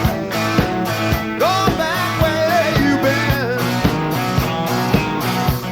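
Live rock-and-roll band with electric guitars, bass and drums playing a song over a steady drumbeat, while a lead line bends up and down in pitch.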